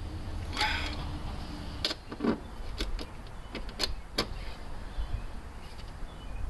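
Steel rod of a dent-repair tool being worked into a car door: a short metallic scrape about half a second in, then a run of sharp clicks and knocks as the rod taps against the door's sheet metal.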